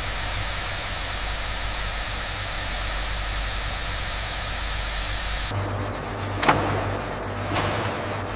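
Factory machinery noise: a steady hiss over a low hum, which changes abruptly about five and a half seconds in to a lower hum with two sharp knocks.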